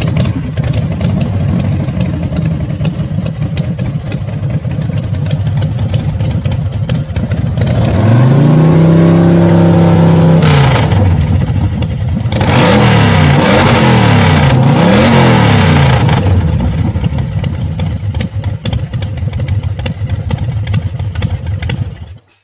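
Motorcycle engine running with a fast, even firing beat, revved up and let fall back about eight seconds in, then blipped twice between about thirteen and sixteen seconds. It cuts off suddenly near the end.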